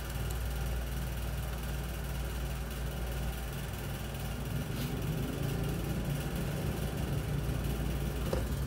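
Steady low hum over a faint even hiss.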